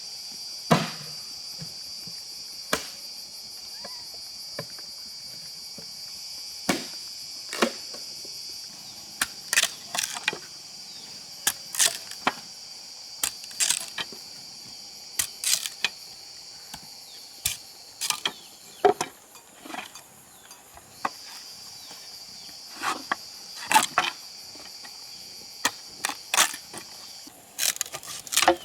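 A steady, high-pitched insect chorus under sharp knocks that come at irregular intervals, often a second or so apart and sometimes in quick pairs.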